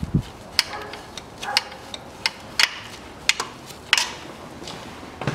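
Flex-head ratchet wrench clicking as it is worked back and forth to loosen the fill plug of a transfer case: sharp single clicks, unevenly spaced, about two a second.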